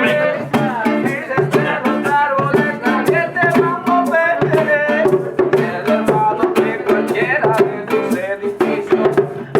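Reggae music with a steady beat.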